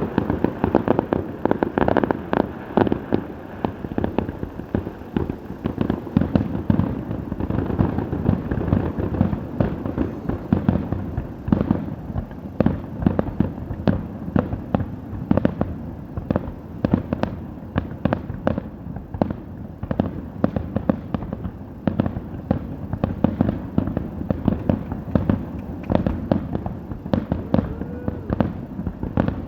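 Fireworks show: a dense, rapid barrage of bangs, several a second, with no let-up.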